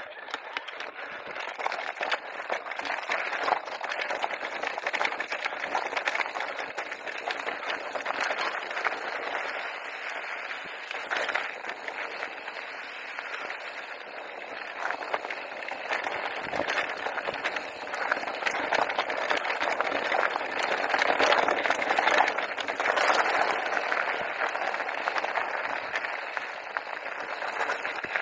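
Mountain bike tyres rolling fast over a loose gravel and dirt trail, a steady crackling rush with the bike rattling over the surface. It gets louder in the second half.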